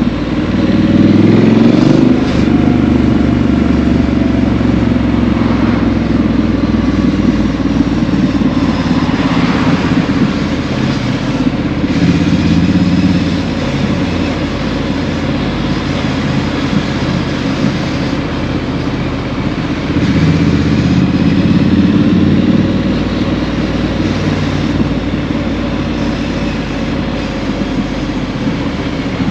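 Triumph Street Scrambler 900's 900 cc parallel-twin engine running through a Vance & Hines exhaust, recorded on the moving bike at low town speed. It picks up about a second in, runs steadily on light throttle, and swells again about two-thirds of the way through.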